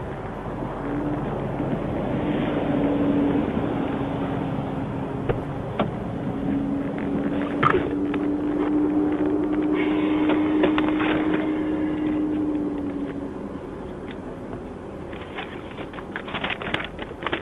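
Tractor-trailer passing on the highway: engine and tyre noise with a steady droning tone, growing louder toward the middle and then fading.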